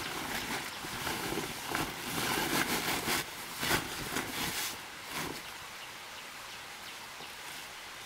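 A woven plastic sack rustling and crinkling as it is handled, in a run of short crackly strokes that stops about five seconds in, leaving a steady faint hiss.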